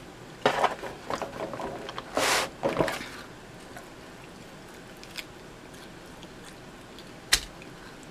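Close-up eating sounds of pizza being bitten and chewed: a run of crunches and wet mouth clicks in the first three seconds, then quiet chewing with one sharp click near the end.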